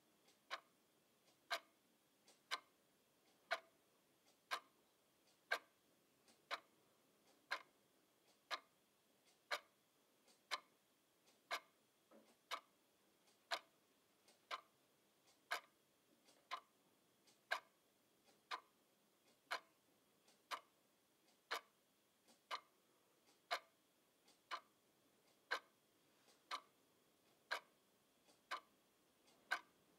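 Quartz twin-bell alarm clock ticking steadily once a second, each tick a sharp click with a fainter click just before it.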